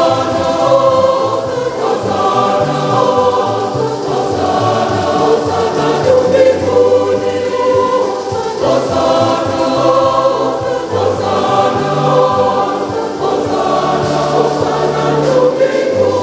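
Church choir and congregation singing a lively African gospel-style Mass hymn, many voices together over a steady low bass line that moves in steps.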